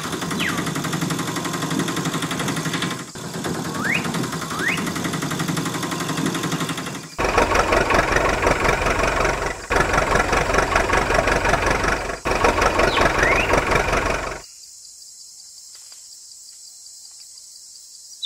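An engine running with a fast, even knocking beat, in the manner of a diesel machine; it gets louder and heavier about seven seconds in, breaks off briefly twice, and drops to a faint steady hum about fourteen seconds in. A few short rising chirps sound over it in the first part.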